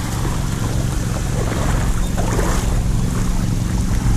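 Steady low rumble with a constant hum and a rushing noise, like wind buffeting the microphone.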